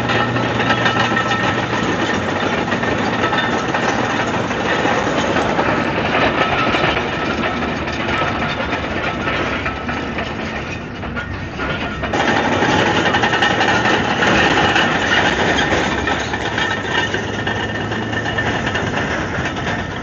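Komatsu D155AX-7 bulldozer's six-cylinder diesel engine running hard with the machine at work. It eases off briefly about ten seconds in, then picks up louder again.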